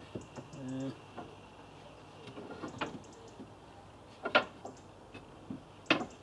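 Scattered knocks and clatter of small wooden offcuts and hand tools being picked up and put down while packing up. There are a handful of sharp knocks, the loudest about four seconds in and another near the end.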